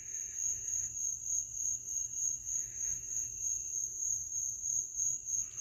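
Crickets trilling steadily in one high, continuous tone, with faint rustling at times.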